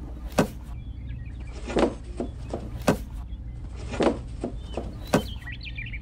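A series of sharp knocks falling in a loose repeating rhythm, with faint bird chirps about a second in and again near the end.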